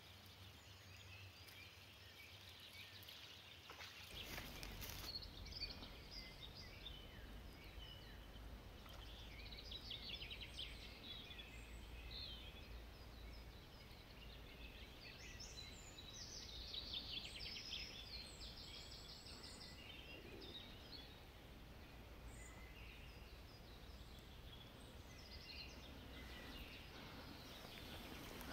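Faint songbirds singing and chirping, with several rapid trills. A steady low rumble sits underneath from about four seconds in.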